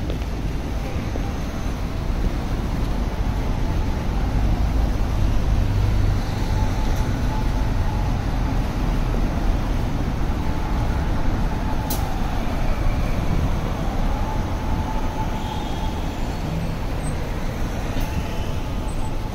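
City road traffic: buses and cars passing, with steady low engine noise and tyre hiss. It grows louder for a few seconds in the middle as a bus goes by.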